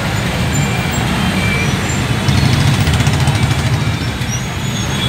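Engines of many motorcycles and scooters running together in a packed street, a loud, steady din of motor traffic.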